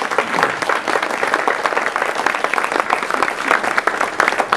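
A small group of people applauding, with many hand claps overlapping.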